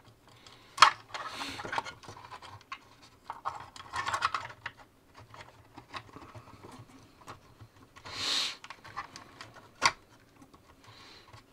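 Handling noise from wiring an RC chassis: plastic XT60 connectors and wires clicking and scratching under the fingers, with two sharp clicks, one about a second in and one near the end.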